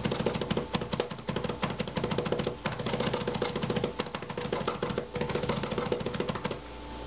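Rapid, steady tapping of a short, heavy kitchen knife rocked quickly on a plastic cutting board, mincing garlic; the tapping stops near the end.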